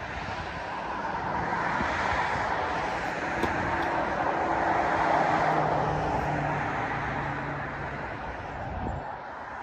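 Noise of a passing vehicle that swells slowly to a peak about halfway through and then fades away.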